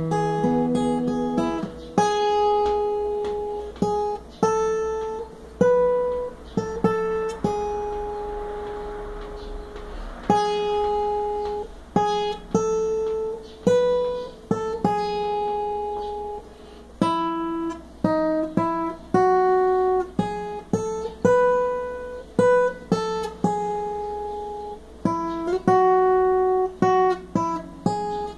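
Acoustic guitar played solo: a slow melody of single plucked notes, about one or two a second, with some strummed notes between them, several notes left to ring for a couple of seconds.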